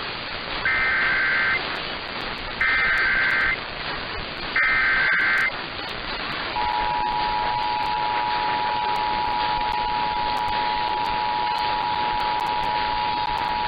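Emergency Alert System test tones received over the radio. First come three short bursts of the warbling SAME data header, about two seconds apart. About six and a half seconds in, the steady two-tone attention signal starts and holds, over a constant hiss.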